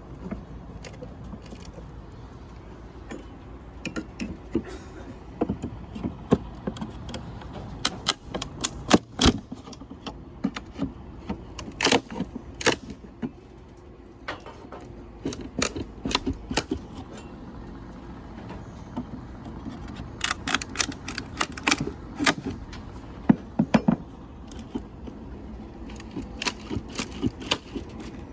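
Hand demolition of old roof trim: irregular sharp knocks, clicks and light metallic rattles as boards and metal flashing are pried loose, some coming in quick flurries, over a steady low outdoor rumble.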